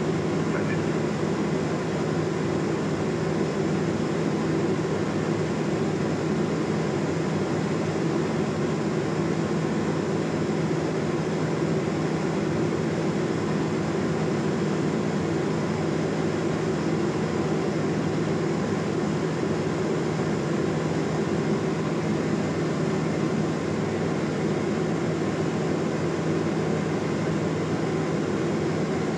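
Cabin noise of a Cessna P210 Centurion in flight: the turbocharged six-cylinder piston engine and propeller make a steady, even drone, heard inside the cabin.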